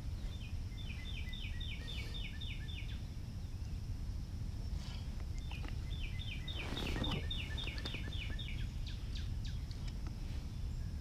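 A songbird singing two trilled phrases of quick repeated two-part chirps, about five notes a second, each phrase two to three seconds long, over a steady low rumble of wind. A brief rustle comes about seven seconds in.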